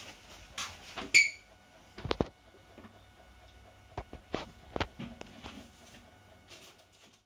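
A handful of scattered knocks and thuds from a fridge being opened and a plastic mixing bowl set inside it, strongest about two seconds in and again around four to five seconds in.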